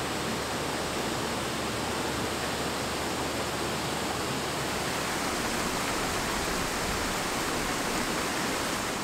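Water of a small rocky creek cascade tumbling over boulders into a pool, a steady rushing.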